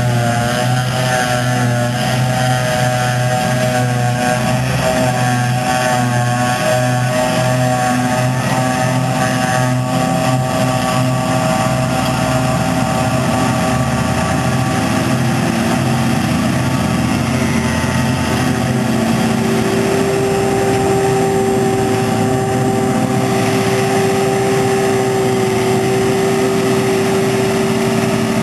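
John Deere 6850 self-propelled forage harvester running steadily under load, its engine and chopping gear giving a loud, even hum of several steady tones while it chops wilted grass, with the tractor hauling the trailer alongside. A higher steady tone joins in about two-thirds of the way through.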